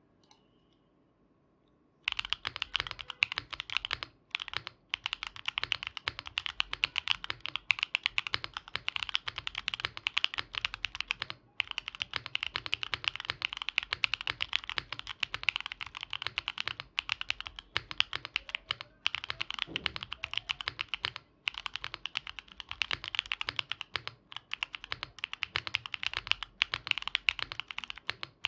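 Fast typing on a Mode Envoy mechanical keyboard with Gateron Baby Kangaroo tactile switches, an aluminium plate and GMK keycaps. Dense, rapid clacky keystrokes begin about two seconds in, with a few brief pauses.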